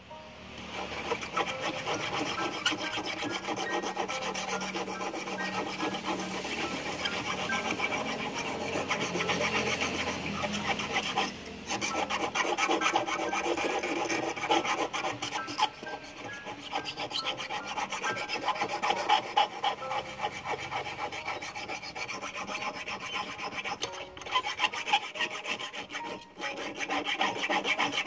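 Hand file rasping back and forth on the black steel wire of a handmade fishing hook in quick, continuous strokes, with short breaks about a third of the way in and twice near the end.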